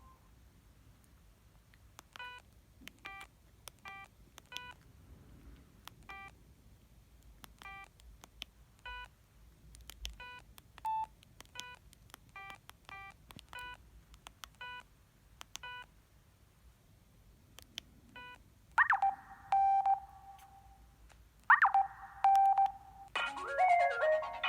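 A ZTE F102 mobile phone giving a string of short beeps, all at the same pitch and at irregular intervals, then two longer, louder tones with a sharp start near the end. A polyphonic ringtone begins just before the end.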